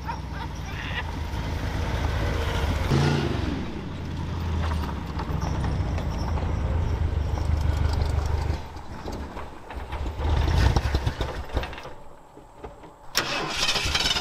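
Ford 460 V8 in a 1979 Ford one-ton truck running hard under throttle, its rear tyres spinning on grass in a dusty burnout, with the revs dipping briefly about three seconds in. The engine turns choppy after about nine seconds and fades out near the end.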